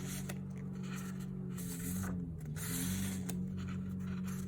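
Paper and plastic rustling in short bursts as cards and packaging are handled, over a steady low hum.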